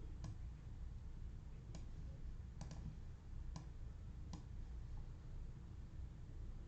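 About six light, sharp clicks at irregular intervals, two of them in quick succession near the middle, over a faint low steady hum.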